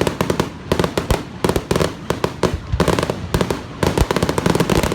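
Fireworks going off in quick succession: a dense run of sharp bangs and pops, several a second.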